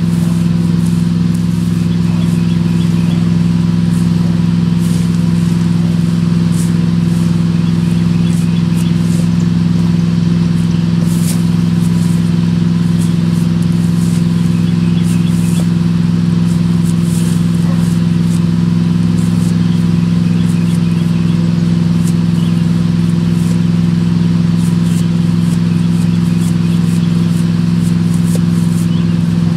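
Steady low mechanical hum, unchanging in pitch and level, like a motor running at idle.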